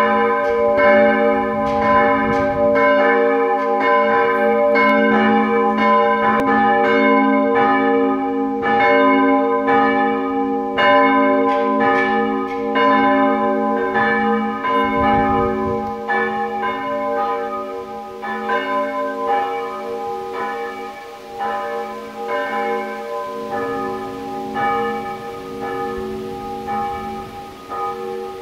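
Church bells of a brick church tower ringing, clang after clang overlapping in a continuous peal. The strokes grow quieter and sparser in the second half as the ringing dies down.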